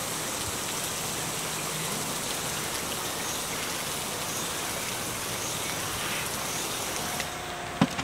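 Light rain falling steadily, an even patter of drops. A sharp click comes near the end.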